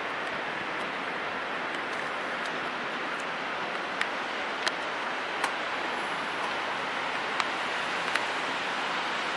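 Passenger train rolling slowly away over station points: a steady rushing noise, with several sharp clicks of wheels going over the switch joints in the second half.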